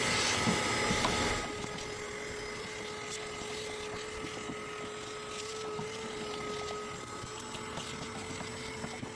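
Shop vacuum running, sucking nest debris out of an RV rooftop air conditioner housing. About a second and a half in, the level drops and it settles into a steady hum with a clear held tone.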